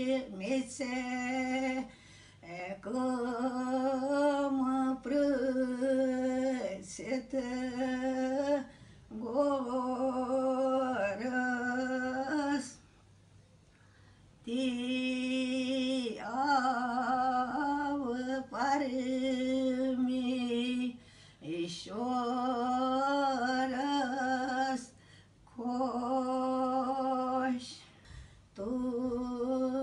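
An elderly woman singing a traditional Kashmiri song unaccompanied, in a slow chant-like style. She holds long, steady notes in phrases of two to three seconds with short breaths between them, and makes a longer pause about halfway through.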